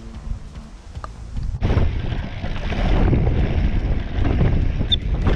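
Wind buffeting the microphone of a camera carried on a mountain bike ride down a dirt trail, mixed with tyre and trail rumble. It starts suddenly about a second and a half in and stays loud.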